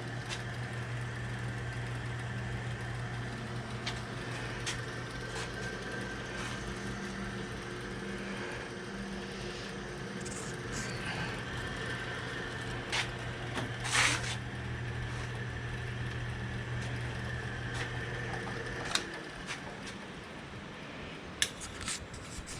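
Restored 1957 Diamond horizontal milling machine running under its own electric motor and belt drive on its first run after reassembly, a steady hum with a few fixed tones. A few sharp clicks come near the middle, and the hum stops about three-quarters of the way through as the machine is shut off.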